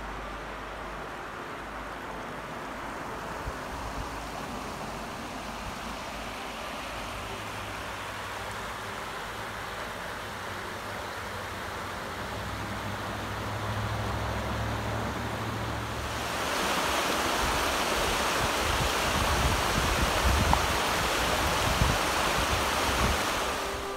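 Virgin River rushing over a rocky bed, a steady noise of flowing water that grows louder about two-thirds of the way through as it runs through shallow rapids.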